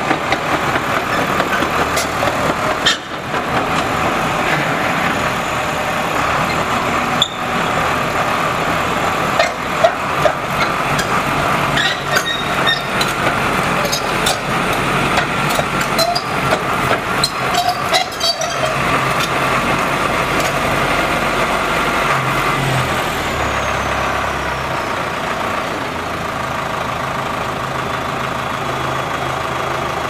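HAMAC TS series compact crawler dozer running steadily as it drives and turns on its tracks, with occasional clanks and squeaks over the engine.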